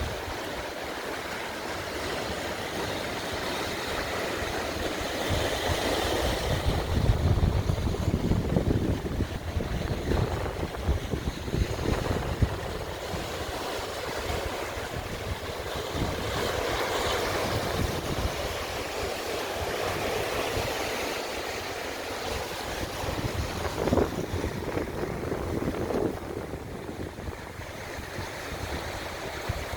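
Wind gusting across the microphone with sea waves washing on the shore; the heaviest gusts come about a quarter of the way in, then ease.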